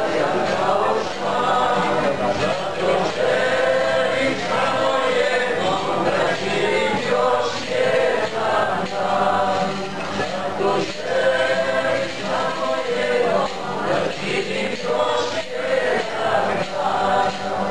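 A group of men and women singing a song together, accompanied by two strummed acoustic guitars.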